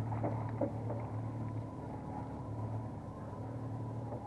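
Boat engine running steadily at trolling speed, an even low hum heard from on board. A few short clicks come within the first second.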